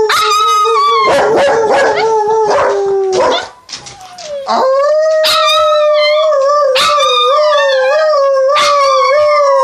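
Dogs howling in long, drawn-out howls with slowly sliding pitch. The howling breaks off for about a second a little past the middle, then starts again.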